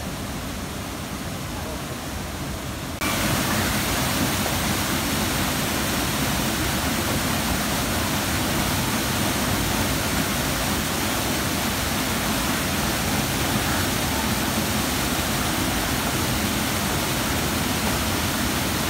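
Rushing water from a stream. About three seconds in it steps up suddenly to the louder, steady rush of a small waterfall pouring into a rock pool.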